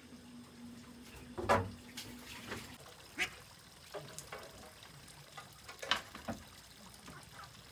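Ducks quacking in a series of short calls, mixed with small splashes at the pond surface where a fish is on the line.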